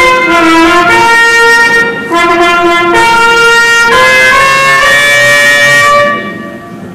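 High school band of flutes and brass playing held chords that change about once a second; the music ends about six seconds in and the last chord dies away.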